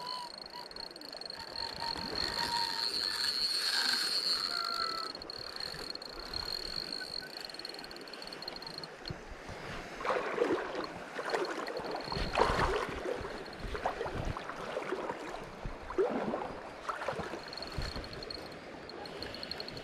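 A hooked salmon being played close in on a spinning rod: river water splashing in several sudden swells through the middle part, the loudest a little past halfway, over a steady high whine that stops partway through and returns near the end.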